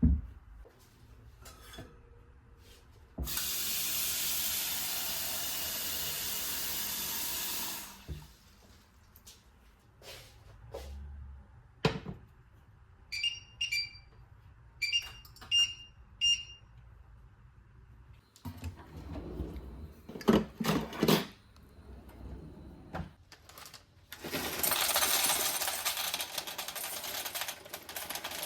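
Kitchen work sounds: a water tap runs for about four seconds, then stops. A few short ringing clinks of dishes or utensils follow, then some knocks, and near the end the tap runs again.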